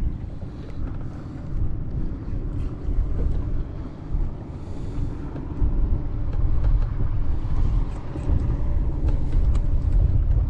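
Wind buffeting the microphone over open water: a steady low rumble that swells and grows louder about halfway through.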